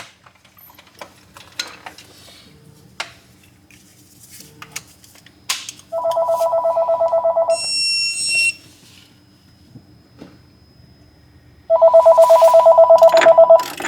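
A mobile phone ringing twice. Each ring is a loud, rapidly pulsing trill about a second and a half long, with a brief higher tone just after the first ring. Light clicks and taps are heard before the rings.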